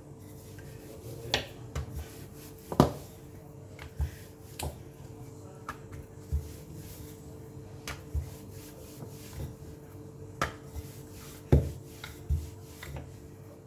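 Rolling pin knocking and rolling on a stone board while small balls of egg-enriched maida dough are rolled flat: a dozen or so irregular sharp clacks, the loudest about three seconds in and near the end, over a faint steady hum.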